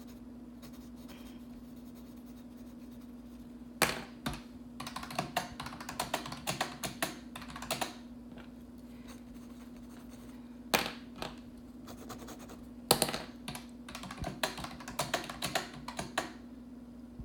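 Calculator keys tapped in quick runs of clicks, with pauses between the runs as figures are entered. A steady low hum runs underneath.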